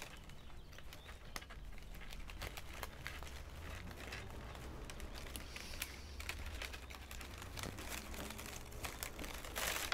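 Plastic baling straps crinkling and clicking as they are woven by hand, with a brief louder rustle near the end, over a faint steady low hum.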